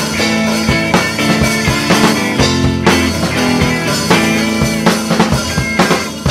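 Rock music with a drum kit keeping a steady beat under sustained guitar.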